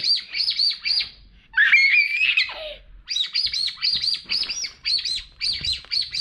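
Rapid bird-like chirping, short high chirps about five a second, broken about one and a half seconds in by a louder high squeal that falls away, before the chirping resumes.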